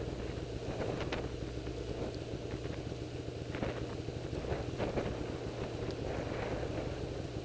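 Snowmobile engine running steadily while riding along a snow trail: a low, even drone with a few short knocks from bumps in the trail, and wind on the microphone.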